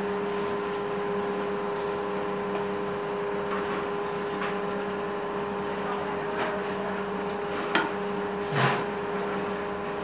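Steady machine hum in a kitchen, with several sharp clinks and scrapes as a plate scoops cooked rice out of a large metal pot and drops it onto a steel serving platter. The loudest clink comes near the end.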